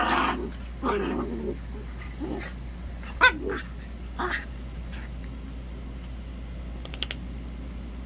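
Two small terriers play-fighting, growling in about five short, rough bursts over the first four or five seconds, then going quiet.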